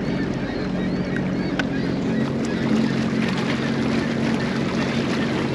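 Sea-Doo GTX 170 personal watercraft's three-cylinder Rotax engine running steadily, with water washing along the hull.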